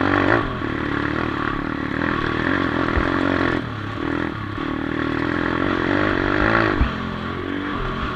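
A 140cc pitbike's single-cylinder four-stroke engine is revving hard as the bike is ridden over a dirt track, heard from a handlebar-mounted camera. The throttle backs off about three and a half seconds in and again near the end, and there are a couple of short knocks from the bike over bumps.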